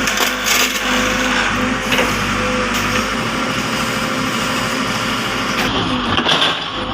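A machine running with a steady hum, with a few knocks over it.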